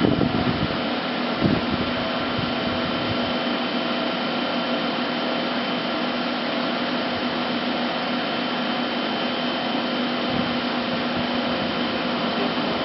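Romi M27 CNC lathe running under power: a steady machine hum with a few constant tones over a steady whir, with a couple of light knocks in the first two seconds.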